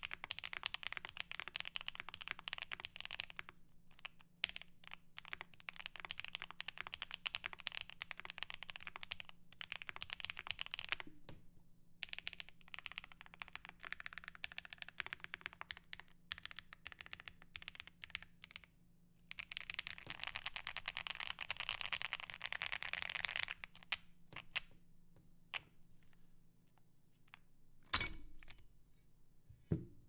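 Typing on a Cykle7 keyboard with PC plate, full foam, PBT keycaps and filmed, lubed Akko V3 Cream Black Pro linear switches: fast runs of keystrokes in four long bursts with short pauses, thinning to scattered single key presses. Near the end a single loud crack rings out as the top case comes off.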